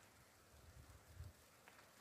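Near silence, with a couple of faint low bumps about a second in and a faint click near the end.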